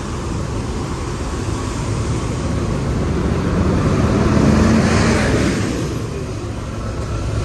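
Coach bus engines idling close by amid street traffic: a steady low rumble that swells about four to five seconds in, with a low hum, then eases off.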